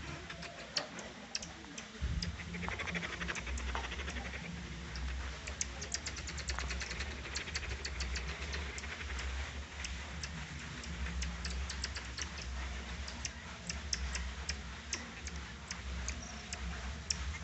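Common marmosets giving short, high-pitched tsik calls, irregular ticking chirps scattered through the whole stretch, with a denser run of rapid twittering about two to four seconds in.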